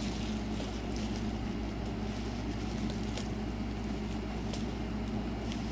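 Steady low electrical or fan-like hum, with a few faint clicks of items and packaging being handled.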